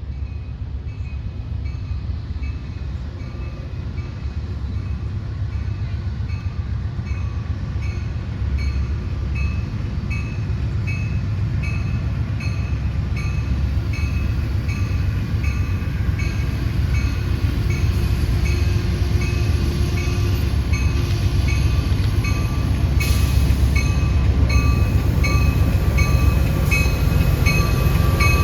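A train rumbling as it approaches, growing steadily louder, with a ringing ding repeating about twice a second.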